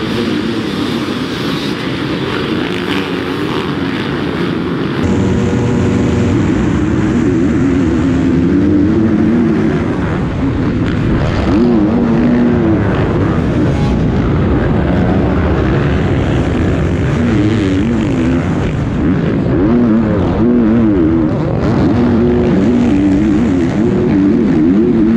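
A pack of motocross bikes racing hard off the start. From about five seconds in, one dirt bike's engine is heard close up from on board, revving up and down through the gears as it races with other bikes around it.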